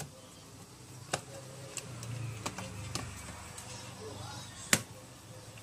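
Plastic laptop bottom cover being set back onto the chassis and pressed into place: a few scattered light clicks and snaps, the sharpest one near the end.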